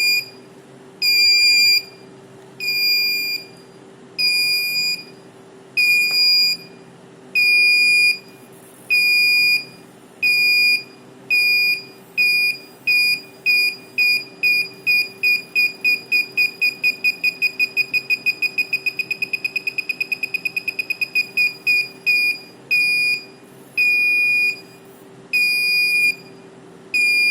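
Electronic buzzer driven by a 555 timer circuit giving a high-pitched beep over and over. The beeps come about one every second and a half, quicken to a fast, almost continuous trill about two-thirds of the way through, then slow back down to the starting pace.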